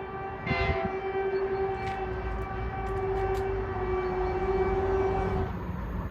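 Train horn on a Transport for Wales driving van trailer, held on one long steady note, with a louder, brighter blast about half a second in. The note cuts off about five and a half seconds in, leaving a low rumble.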